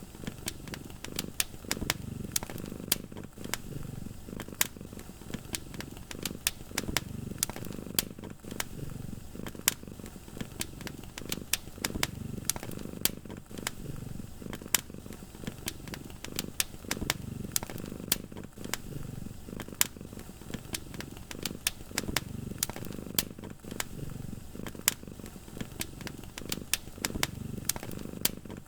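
A sleeping cat purring, a low rumble that swells and fades in slow cycles with its breathing. Over it, a wood fire crackles with frequent sharp pops.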